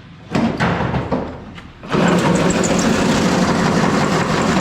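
A few short knocks, then about two seconds in a power tool starts suddenly and runs loud and steady.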